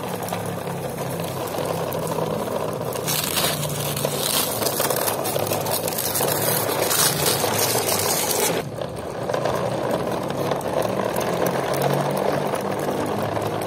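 Plastic toy trucks' wheels rolling over rough concrete: a steady grinding rumble. It gets brighter in the middle, then drops suddenly about two-thirds through.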